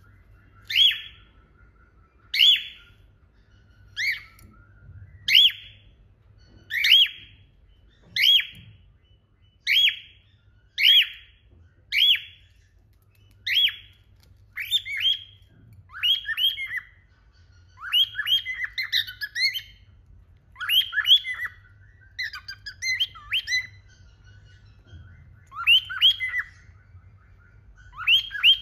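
Cockatiel calling over and over: a short, upward-sweeping whistled call about every one and a half seconds. From about halfway through, the calls turn into longer, more broken chattering phrases.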